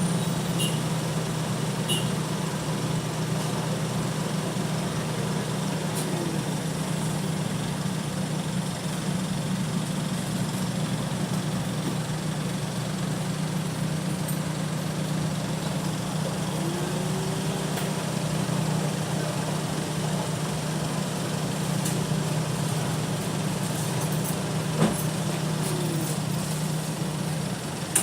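A steady low mechanical hum that stops shortly before the end, with a single sharp click near the end.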